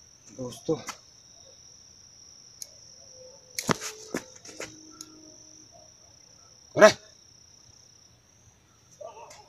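A dog barks a few short times, the loudest bark about seven seconds in, over a steady high chirring of crickets. A few sharp knocks come around four seconds in.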